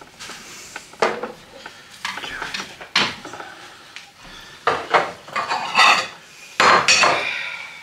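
A metal spoon scraping and clinking against a baking dish and plates as portions of baked rice porridge are dished out: a series of separate clatters, loudest and busiest about five to seven seconds in.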